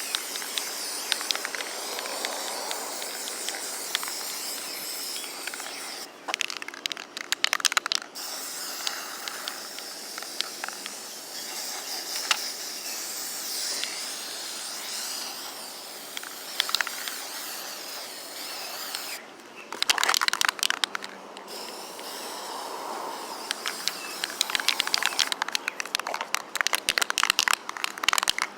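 Aerosol spray-paint can hissing in long steady sprays, broken three times by stretches of rapid rattling clicks.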